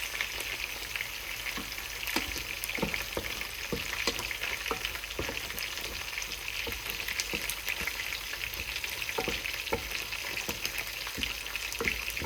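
Fish in a tomato and onion sauce sizzling in a hot pan, a steady hiss with scattered small pops and crackles.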